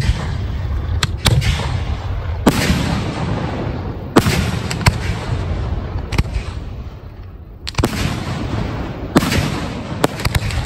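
Aerial fireworks going off: about eight sharp bangs of launches and bursts, spread unevenly, each followed by a rushing hiss that dies away. A couple come in quick pairs, about a second in and again near the end.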